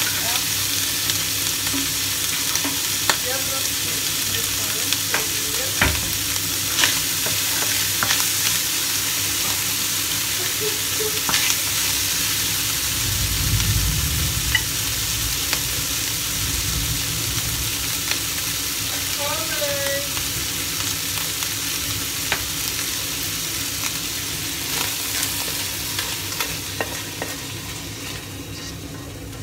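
Minced meat sizzling in a non-stick wok, with scattered taps and scrapes of a plastic spatula stirring it. The sizzle eases off near the end.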